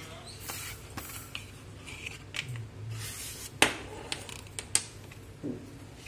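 Paperboard retail box being handled and opened: a cardboard sleeve slid off and the inner box pulled apart, with short rustling, scraping swishes and a few sharp clicks and taps, the loudest about three and a half seconds in.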